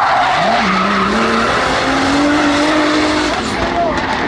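Drift car sliding sideways with its tyres spinning and hissing. The engine revs up twice in the first second, then holds high revs.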